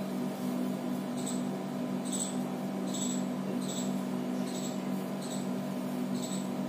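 A steady machine hum with short, faint, high chirps repeating about once a second.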